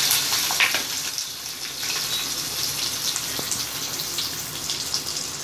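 Sliced onions, green chillies and garlic sizzling in hot oil just after going into the pan: a steady frying hiss with a few faint crackles, easing a little over the first couple of seconds.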